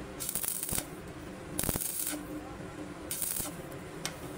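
MIG welder tack-welding the seam between a steel air tank's rolled shell and its domed end cap: three short bursts of crackling arc, each about half a second long, over a steady low hum.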